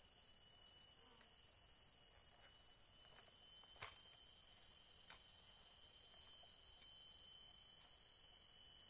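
Steady high-pitched chorus of insects, several shrill tones held without a break, with a couple of faint clicks near the middle.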